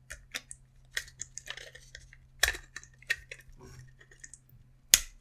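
Light, irregular clicks and taps of 3D-printed plastic mouse parts being handled as the thumb module is slid into the housing, with a sharper click near the end.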